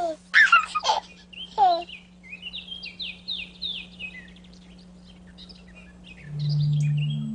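Dawn birdsong: a string of short, high chirping songbird phrases, opened by a few loud falling calls in the first two seconds. About six seconds in, a low steady musical note swells in under the birds as the theme music begins.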